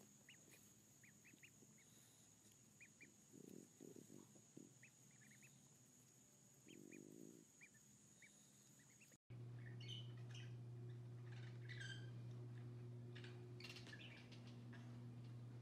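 Ducklings peeping faintly: scattered short, high cheeps over near silence. About nine seconds in it cuts to a steady low hum with a few faint chirps and clicks.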